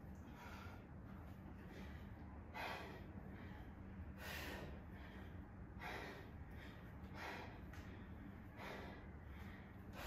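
A woman breathing out sharply, in time with her kettlebell swings, about once every one and a half seconds. The breaths are faint, over a steady low hum.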